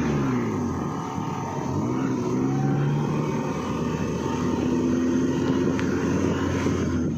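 Off-road 4x4 vehicle's engine running under load on a trail, its pitch dipping at first, climbing again about two seconds in, holding steady, then falling away near the end.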